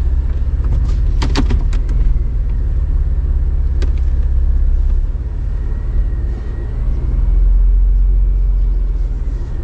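4x4 vehicle engine running with a steady deep rumble, which swells for a couple of seconds past the middle.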